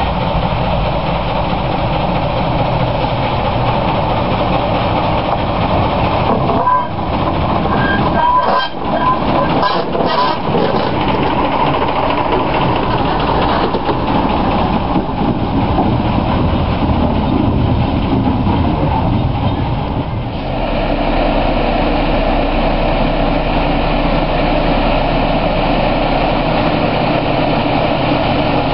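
Ruston & Hornsby-built Class 07 diesel shunter D2994's engine running steadily, with brief clanks and short higher tones about seven to eleven seconds in. About twenty seconds in the engine note changes to a steady deep hum.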